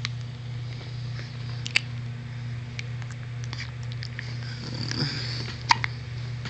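Newborn baby hiccuping: a few short, sharp hiccups, the clearest about two seconds in and near the end, over a steady low hum.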